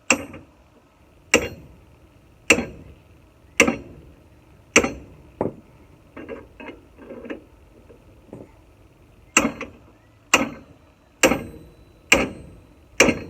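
Hammer blows on a hub puller, about one a second with a metallic ring, working to break a seized drum hub loose; a run of five strikes, a few lighter knocks in the middle, then another run of five.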